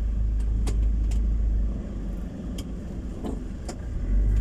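Street traffic dominated by small motorcycle engines: a heavy low engine rumble for the first second and a half that then drops away, a few scattered light clicks, and a swell of engine rumble as a motorcycle passes close near the end.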